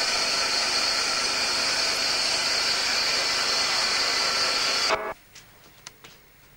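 Bandsaw running and cutting through a wooden board as it is fed by hand: a steady, high-pitched hissing noise that cuts off suddenly about five seconds in.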